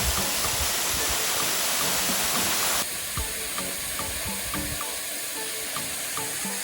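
Waterfall rushing in a steady, dense roar for about the first three seconds, then cut off suddenly to a quieter hiss. Light background music with short repeating notes plays underneath throughout.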